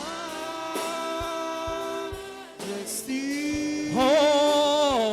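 Gospel worship singing: one voice holds long, sliding notes over soft instrumental accompaniment with a faint regular beat.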